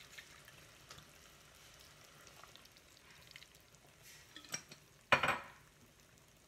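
Cream sauce with poblano strips and corn sizzling faintly in a saucepan on low heat, with a few light clicks and then one sharp, loud clatter about five seconds in.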